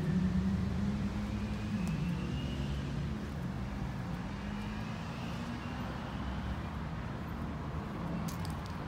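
A motor vehicle's engine running, a low steady hum that slowly fades away as it moves off.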